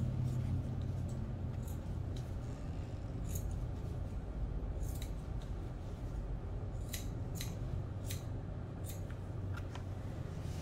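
Grooming shears snipping a dog's coat: sharp, short snips at irregular intervals, several close together between about seven and ten seconds in.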